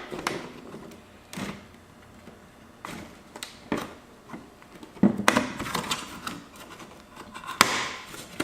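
Plastic laptop case parts being handled and worked apart by hand: scattered irregular clicks and knocks, some with brief scraping.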